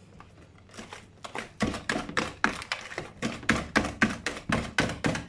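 Wire whisk beating pancake batter in a glass mixing bowl, its wires clicking against the bowl with each stroke. The strokes begin about a second and a half in and settle into a brisk rhythm of about four a second.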